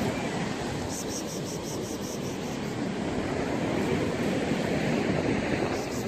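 Surf washing on the shore with wind rumbling on the microphone.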